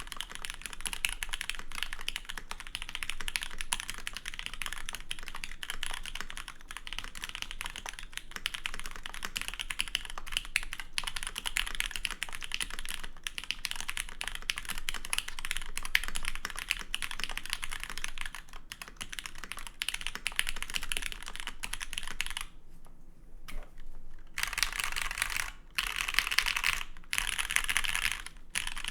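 Fast, continuous typing on a custom tenkeyless mechanical keyboard with lubed, filmed Cherry MX Teal linear switches (Hyperglide Black housings with Tealio stems) in an aluminum plate, under GMK keycaps. The typing stops for about two seconds a little over three-quarters of the way through, then carries on.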